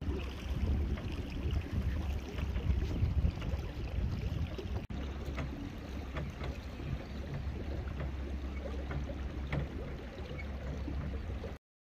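Small boat's motor running steadily as the boat moves along, a low even drone mixed with wind on the microphone. The sound breaks off for an instant about halfway through and stops suddenly just before the end.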